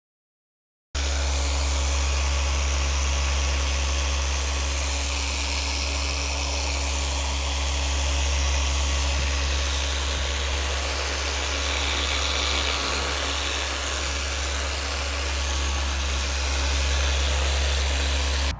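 A machine running with a steady low hum and an even hiss, starting abruptly about a second in and holding level without changes in speed.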